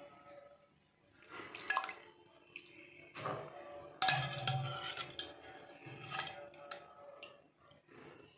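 Wire-mesh skimmer scooping washed sweet corn kernels out of water in an aluminium pot: splashing and dripping water, with a few clinks and clatters of metal against the pot, the loudest about four seconds in.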